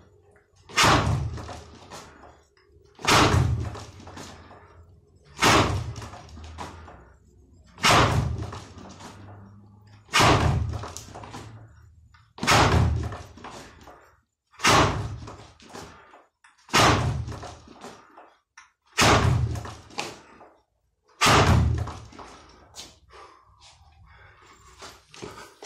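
Fist striking a spring-mounted wooden makiwara board with kizami zuki jabs: ten sharp, loud hits at a steady pace of one every two seconds or so, each leaving a short ringing tail. The strikes stop about four seconds before the end, leaving faint shuffling.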